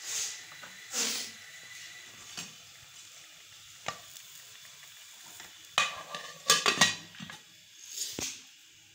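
Potato curry simmering in a metal pot, with scattered soft bubbling pops. A little past halfway a metal lid clatters onto the pot: a quick run of sharp, ringing metallic clinks, the loudest sounds here.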